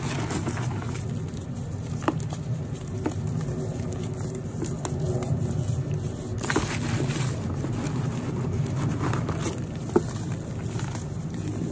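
Hands crushing and crumbling dry, powdery dyed chunks in a bucket: a steady soft crunching and rustling of powder, with a few sharp cracks as lumps break, the loudest about ten seconds in.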